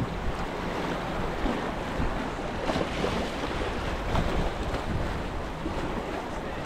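Small waves washing and splashing over jetty rocks in a steady rush of surf, with wind buffeting the microphone.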